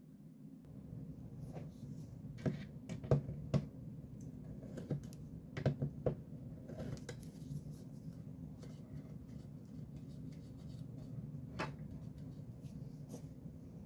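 Scattered clicks and knocks of small tools and plastic parts being handled during disassembly, over a steady low hum; the sharpest clicks come in clusters a few seconds in and about halfway through.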